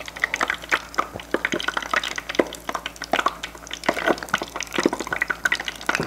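Oil in a small deep fryer crackling and popping as pieces of fugu karaage fry, a fast, irregular patter of little pops.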